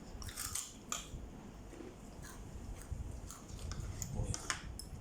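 A person chewing food close to the microphone, with a few short sharp clicks among the steady chewing.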